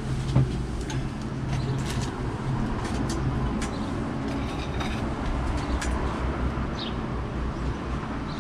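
Steady low rumble and hum of outdoor background noise, with scattered light clicks and taps of things being handled on a table.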